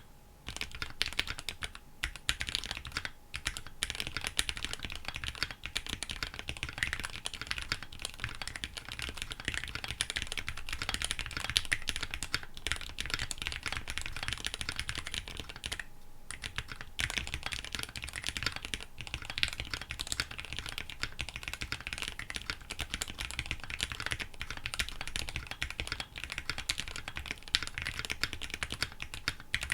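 Steady, fast typing on a KBDfans D65 mechanical keyboard with linear Gateron Black Ink v2 switches and EPBT 9009 PBT keycaps: a dense run of keystroke clacks, broken by short pauses right at the start and about halfway through.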